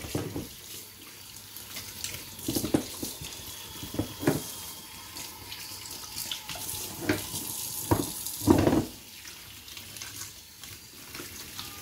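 Kitchen tap running water onto peeled potatoes in a stainless steel mesh strainer, splashing as they are rinsed and turned by hand, with several sudden louder splashes along the way.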